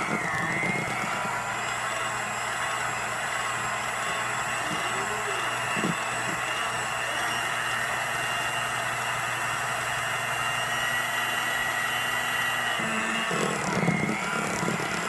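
Electric hand mixer running steadily with a single beater stirring natural peanut butter in a glass jar, a constant motor hum and whine. The sound changes briefly near the end.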